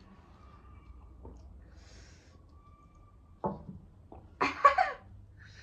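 A person's sharp, noisy breath burst, like a cough or gasp, in two or three quick pulses about four and a half seconds in, preceded by a shorter vocal sound.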